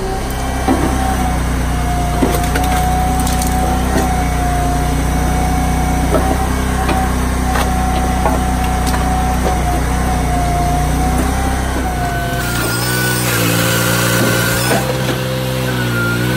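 Dyna firewood processor running steadily under load, with repeated sharp knocks and cracks as logs are cut and split and pieces drop. The machine's running tone changes about twelve seconds in.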